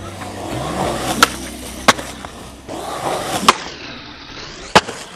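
Skateboard wheels rolling on concrete, broken by four sharp clacks; the last two, just over a second apart, are the tail popping the board into an ollie and the wheels landing.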